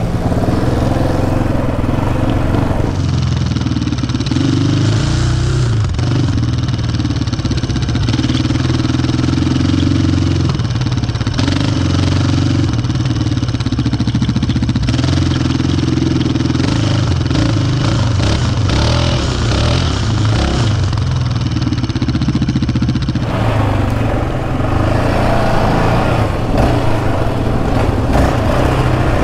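Yamaha Raptor 700R sport quad's single-cylinder four-stroke engine with an aftermarket Monster exhaust, running loudly as it is ridden, its pitch rising and falling with the throttle, heard from a camera mounted on the machine.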